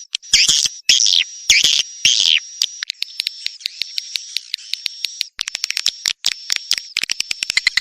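Swiftlet calls: a few buzzy, high twittering calls in the first couple of seconds with sharp clicks between them, then a thin steady high tone over a run of clicks that grows faster and denser near the end.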